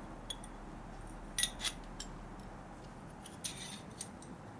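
Small steel transmission parts (shifter shaft, shift fork and spring of a T5 five-speed gearbox) clinking and tapping against each other as they are handled: a few sharp metallic clicks, a pair about a second and a half in and a short cluster near the end.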